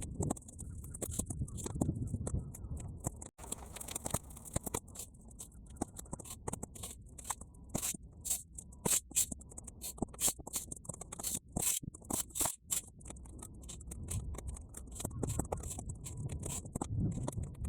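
Bonfire of half-dried weeds crackling, a rapid, irregular stream of sharp pops and clicks, sped up to triple speed. Wind rumbles on the microphone in uneven swells underneath.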